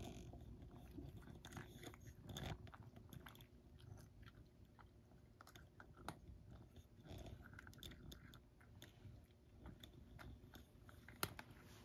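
A cat crunching dry kibble from a bowl: faint, irregular crunches and clicks, with one sharper click near the end.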